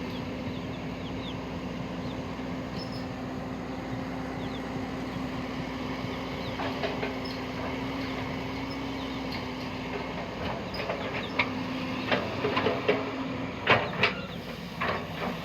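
Excavator engine running steadily, with a held hum, and several short, sharp sounds in the last few seconds.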